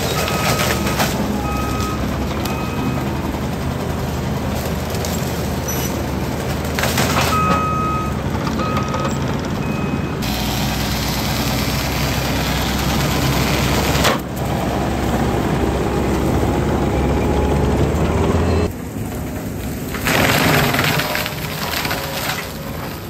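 A New Holland compact track loader's diesel engine running hard while its IronCraft disc mulcher grinds through brush and small trees, with a clattering of wood being shredded. There are a few short beeps in the first half, and the sound changes abruptly twice in the second half.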